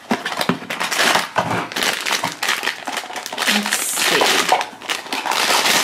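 Cardboard blind box being opened by hand and the foil bag inside it crinkling and crumpling, a dense run of crackles throughout.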